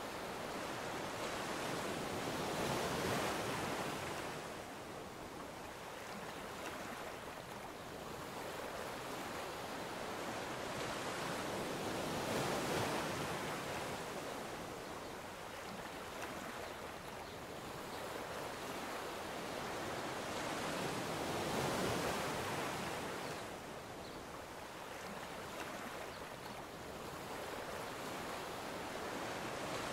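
Ocean surf washing on the shore, a steady rush of noise that swells up three times, about every nine seconds.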